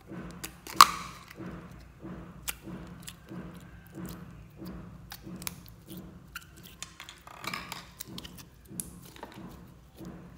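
Plastic slime tub being handled and opened, with a sharp snap about a second in, followed by scattered clicks and plastic crinkling. Near the end comes soft squelching as clear slime is pushed out and kneaded by hand.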